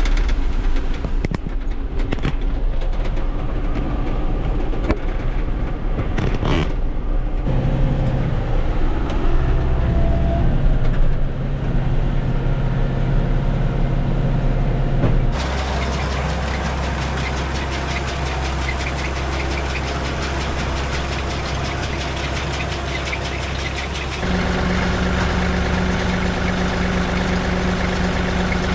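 Tractor engine running steadily during haying, heard in several edited shots, the tone changing abruptly three times as the shots change.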